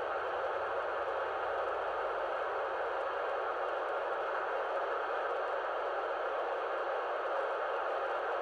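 Steady FM receiver hiss from a dual-band ham radio transceiver tuned to 437.800 MHz, the ISS cross-band repeater downlink, with the squelch open: only static, no signal coming through.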